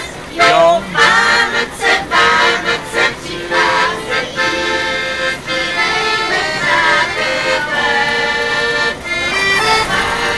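Music with a melody over long held chords.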